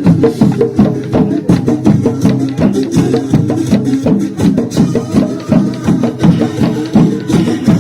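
Lively square-dance music with a quick, steady percussive beat.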